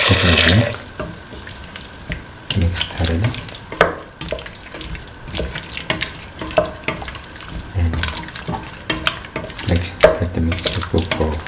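Coconut milk pours into a metal pan of sautéed vegetables, with a loud hiss that stops about a second in. After that a spatula stirs the mixture, with irregular scrapes and clinks against the pan.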